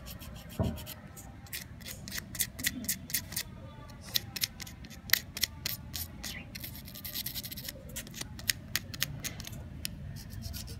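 Emery sheet rubbed lightly back and forth over the spring-pin contacts of a hard drive's connector, cleaning them. It makes a run of quick, irregular scratchy clicks.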